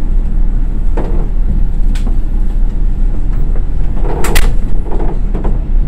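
Steady low rumble inside a diesel railcar as it slows to a stop. A couple of light clicks and a sharper clatter come about four seconds in.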